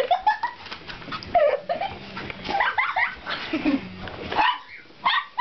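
Small black-and-tan dog barking and yelping at a person in a Santa suit, in clusters of short high calls. She is upset by the Santa.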